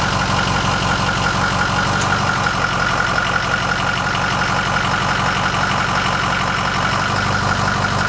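Ford 6.0L Power Stroke V8 turbo-diesel idling steadily, with a steady high whine over the low engine note.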